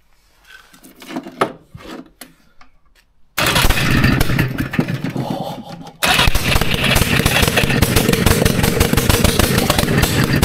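Trabant two-cylinder two-stroke engine, run without an exhaust, firing after about three seconds of clattering. It catches suddenly and runs very loud and rough, falters for a moment about six seconds in, then picks up again and runs on, fading near the end. This is a long-stored engine coming to life on fuel poured into it.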